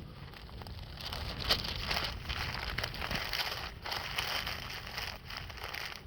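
Wood campfire crackling and popping steadily, with wind rumbling on the microphone.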